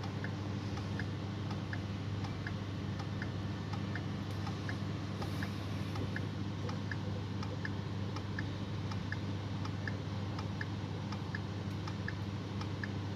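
Steady low electrical hum with a faint, regular ticking about twice a second.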